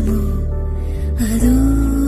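Music: a slow, gentle Malayalam film song, its melody holding long notes over a steady low accompaniment.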